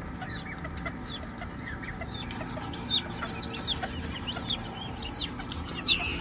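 Young guinea fowl keets and other aviary birds peeping: many short, arched, high-pitched calls, several a second and overlapping, growing louder near the end.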